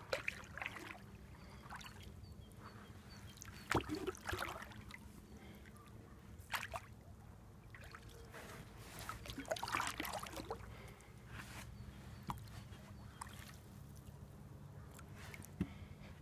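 Water splashing and sloshing around a small folding boat, with scattered knocks against its hull.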